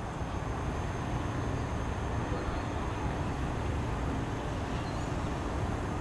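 Steady outdoor background rumble, heaviest in the low end, with a faint steady hum running through it.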